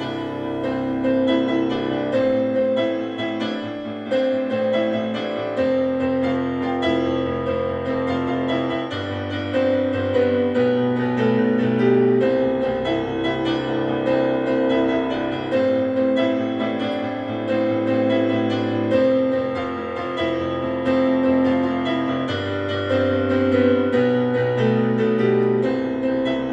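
Background piano music, chords changing every couple of seconds.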